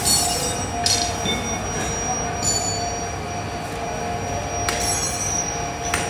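Steady foundry machinery noise with a constant whine, broken by a few brief metallic clinks.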